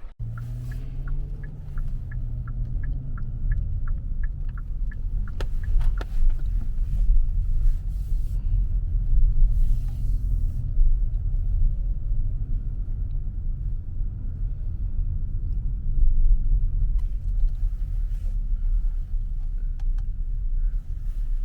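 Car driving, heard from inside: steady low road and engine rumble. For the first five seconds or so a quick, regular ticking sounds over it.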